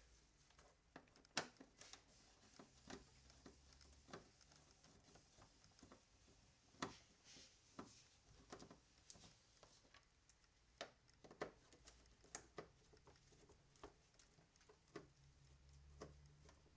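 Faint, scattered clicks and light knocks of hand tools and small plastic parts being handled on a car door, the sharpest about a second and a half in and again near the middle.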